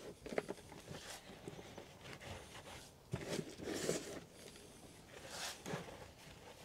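Hands pressing and rubbing loose compost into a plastic module tray: faint, irregular rustles and soft scrapes, with a few slightly sharper touches.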